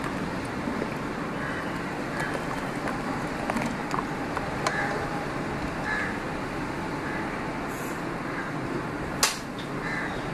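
Hot sugar syrup being stirred in a steel pot with a silicone spatula, over a steady rushing noise: light scrapes and clicks, and one sharp knock about nine seconds in.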